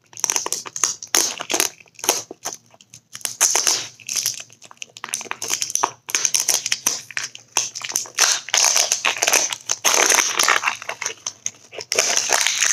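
Plastic packaging of a Pick Me Pop blind toy being squeezed, twisted and crushed in the hands: a run of uneven crinkling and crackling as it resists being opened.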